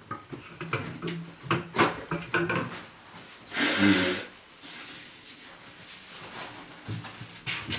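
Household objects being handled: scattered knocks, clicks and rubbing, with a louder rustle about three and a half seconds in.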